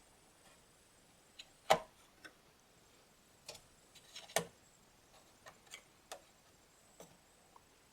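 Irregular light clicks and taps of hands working on a desktop PC's case and parts: a sharp knock a little under two seconds in, another about four and a half seconds in, and softer clicks scattered between.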